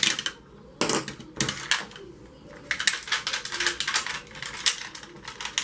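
Rapid, irregular light clicks and clatters of makeup brushes and small cosmetic cases being handled and sorted through while a brush is searched for.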